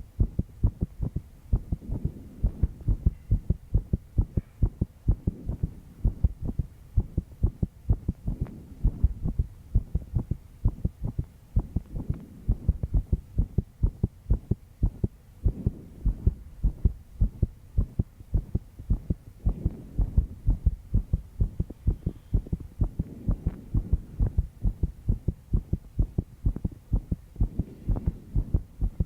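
A young woman's heartbeat recorded up close: a steady run of low thumps, beating fast under stress after a sleepless night.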